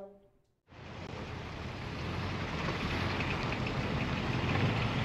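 A car engine running with a steady low hum under a wash of noise, fading in after a brief silence about half a second in and growing gradually louder.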